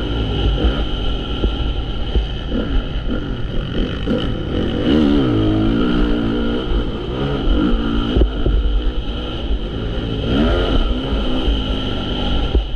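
Honda CRF450 motocross bike's single-cylinder four-stroke engine, its revs rising and falling over and over as the throttle is opened and shut, with the strongest revving about halfway and near the end. A steady low rumble runs underneath.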